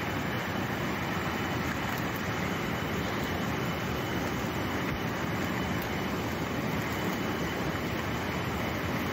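Water rushing steadily over and through the slats of a bamboo fish trap, an even, unbroken rush.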